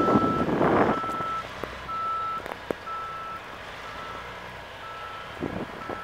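Snowplow truck's reversing alarm beeping steadily, about one half-second beep each second, growing fainter after the first few seconds. A rushing noise rises over it about a second in and again near the end.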